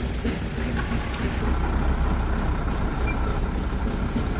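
Diesel truck engine running steadily with a low rumble; a high hiss cuts off about a second and a half in.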